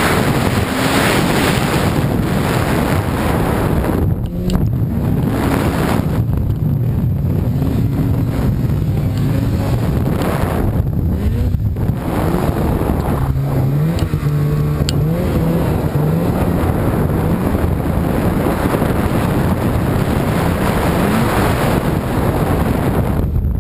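Polaris RMK snowmobile's two-stroke engine running under throttle through deep powder, its pitch rising and falling as the throttle is worked, with wind buffeting the microphone.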